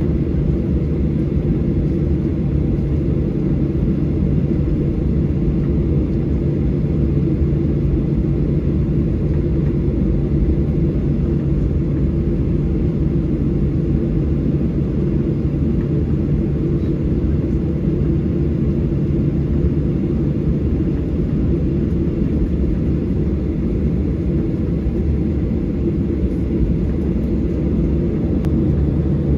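Airliner cabin noise from a window seat: a steady low rumble of engines and airflow with a constant hum, unchanging throughout.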